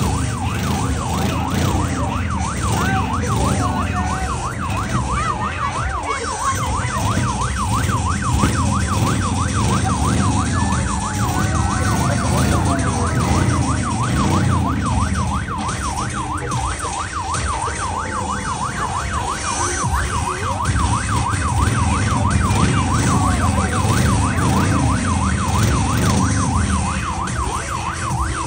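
Siren-like electronic tone warbling rapidly up and down, several cycles a second without a break, over a steady low rumble.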